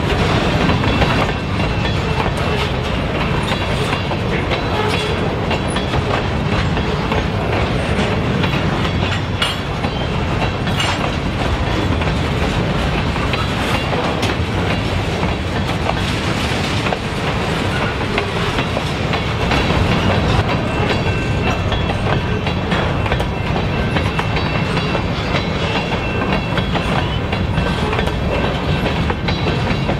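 Covered hopper cars of a unit grain train rolling past on jointed rail: a steady rumble and rattle, with the clickety-clack of the wheels striking the rail joints.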